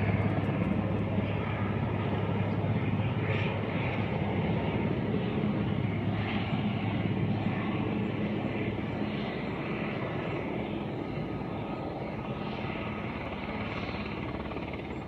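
Helicopter flying away, its steady rotor and engine drone slowly fading.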